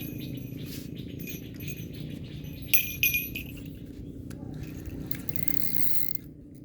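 Light metallic jingling and clinking over a steady low rumble, with two sharp clinks close together about three seconds in.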